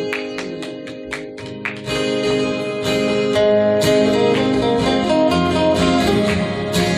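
Acoustic guitar music: a few sharp, percussive strokes over held notes at first, then fuller, louder strummed playing with strong low notes from about two seconds in.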